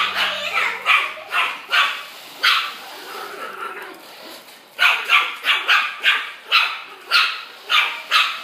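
Miniature pinscher puppy barking at a remote-control toy truck: short, high-pitched yaps, a few spaced out at first, then after a lull a quicker run of about two or three a second.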